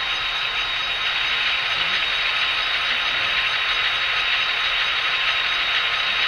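Tsunami DCC sound decoder in an Athearn N scale FP45 diesel locomotive playing its prime mover and turbocharger sound through the model's tiny speaker: a steady hissing drone with a thin, unchanging high whine.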